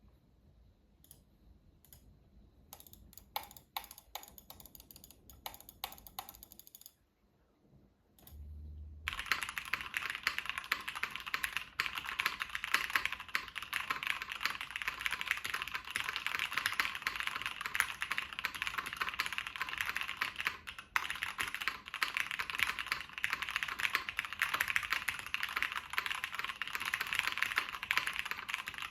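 Typing on a Matrix 1.2 OG mechanical keyboard: top-mounted aluminium half plate, linear Cherry MX Black switches, GMK keycaps, tape under the PCB. A few scattered keystrokes at first, then from about nine seconds in, steady fast typing.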